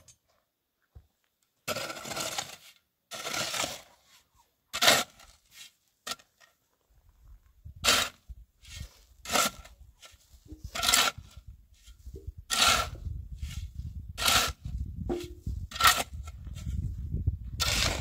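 Rhythmic scraping, one stroke about every second and a half, with a low rumble underneath from about seven seconds in.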